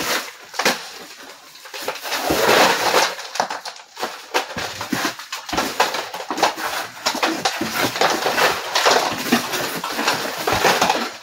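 Crowbars prying and scraping horsehair plaster off wooden lath, with repeated knocks and the plaster crumbling and breaking away.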